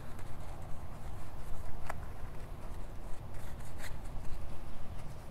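A detail brush scrubbing the inside barrel of an alloy wheel wet with foaming wheel cleaner gel, in quick uneven strokes, with a few light clicks.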